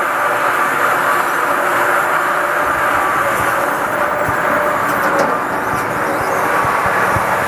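Steep inclined lift running along its rail: a steady mechanical hum with faint steady tones and a few low knocks.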